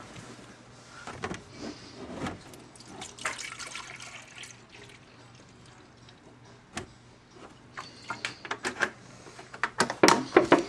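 Milk pouring from a gallon jug into a blender jar, a steady liquid splashing as the jar fills. A series of sharp knocks and clatters comes near the end.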